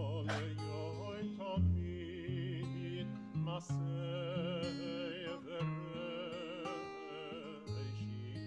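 A male cantor singing a Hebrew liturgical melody in a trained, operatic style with wide vibrato, accompanied by an acoustic guitar.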